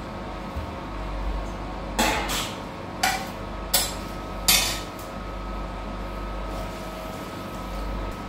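Metal ladle knocking and scraping against a steel plate and a pressure cooker as peas are tipped in and stirred: about five sharp clanks between two and five seconds in, over a steady background hum.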